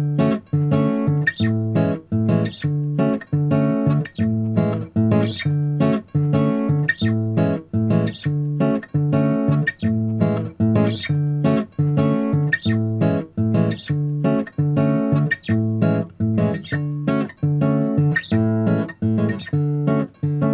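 Background music: acoustic guitar strummed in a steady, even rhythm.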